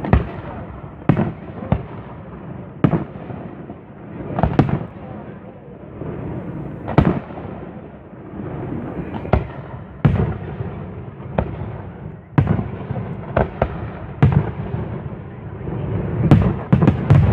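Fireworks display: shells bursting in sharp bangs every second or two, with a low rumble of echo between them. A quick cluster of bangs comes near the end.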